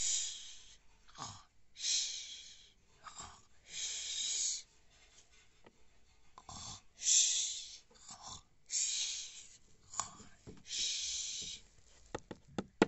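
A person making snoring sounds: a series of breathy, hissing in-and-out breaths every two seconds or so, with a few small clicks near the end.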